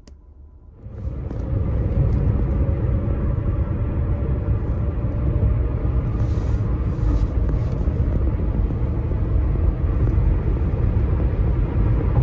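Road and tyre noise inside a moving car on the highway: a loud, steady low rumble that starts abruptly about a second in.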